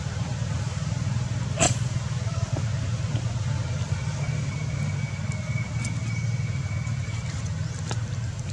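A steady low engine hum, with a single sharp click about a second and a half in.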